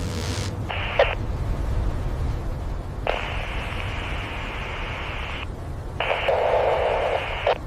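Two-way radio static: three bursts of narrow-band hiss that switch on and off with a click, the middle one about two seconds long, over a steady low rumble.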